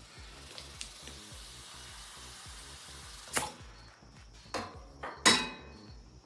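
Compressed air hissing steadily at the valve of a dirt-bike wheel's inner tube, a tube with a hole in it, stopping a little after three seconds in. Then three sharp knocks of tools handled on the bench, the last about five seconds in the loudest.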